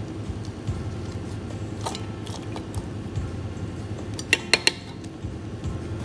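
Metal baking pan and utensils clinking as a pan of raw drumsticks and vegetables is handled: a couple of faint knocks about two seconds in, then three sharp ringing clinks in quick succession a little past four seconds, over a steady low hum.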